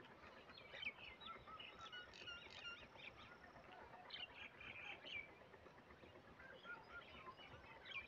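Faint chorus of several birds chirping and calling at once: many short, overlapping notes.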